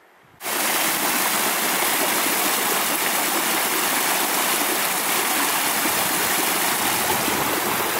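A small, shallow mountain stream rushing and splashing over rocks in a loud, steady rush. It cuts in abruptly about half a second in.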